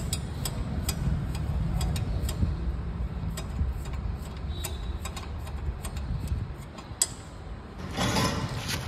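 Regular light metallic clicks, about two or three a second, from hand tools working the nuts while the Yamaha RX100's silencer is refitted. A sharper click comes about seven seconds in, and a short scraping rustle comes near the end.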